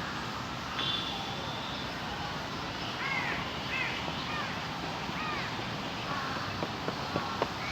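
Birds calling outdoors: a series of short, arched, cawing calls over a steady hiss of open-air ambience, with a few sharp clicks near the end.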